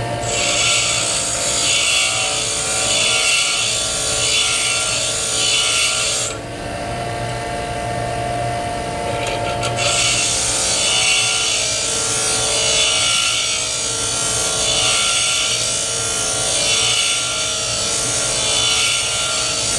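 DeWalt bench grinder running steadily while a cobalt high-speed steel lathe bit is ground to a 60-degree threading-tool point on its wheel. The grinding hiss swells and fades about once a second as the bit is swept back and forth across the wheel. Grinding stops for about three seconds partway through, leaving only the grinder's motor hum, then resumes.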